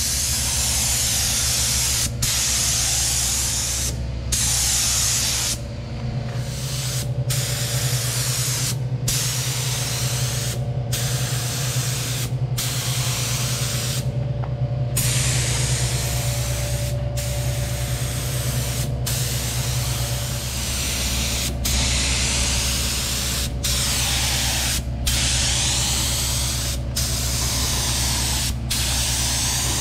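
Black Widow HTE gravity-feed spray gun hissing as compressed air atomises single-stage urethane paint onto a boat hull. The hiss drops out briefly about every two seconds as the trigger is let off between passes, over a steady low hum.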